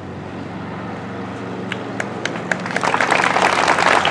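Crowd applauding: a few scattered claps about two seconds in, swelling into steady applause about a second later, over a steady low hum.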